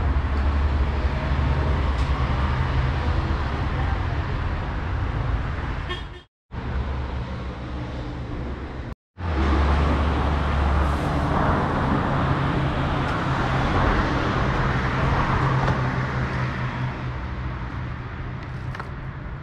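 Street ambience: a steady low engine-like hum with traffic noise, cut off twice by brief dropouts.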